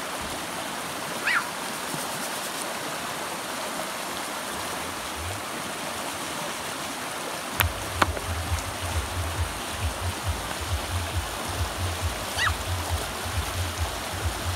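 Shallow rocky stream rushing over stones, a steady even water noise. Two short high chirps come about a second in and again near the end, a couple of sharp clicks sound around the middle, and a low fluttering rumble sets in from then on.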